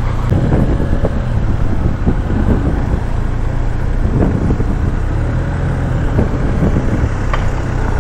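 Benelli 502C's 500 cc parallel-twin engine running steadily as the motorcycle is ridden slowly.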